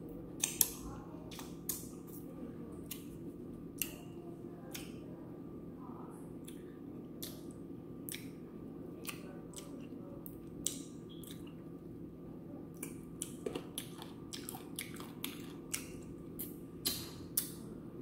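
Wet mouth sounds of a person eating fried chicken close to the microphone: irregular sharp lip smacks and sucking clicks as she licks her fingers and sucks meat off a bone, coming thicker in the second half. A steady low hum runs underneath.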